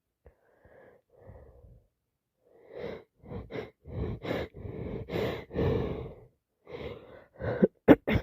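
A person with a heavy head cold drawing in a series of gasping breaths that build in loudness, ending in a loud, sharp sneeze just before the end.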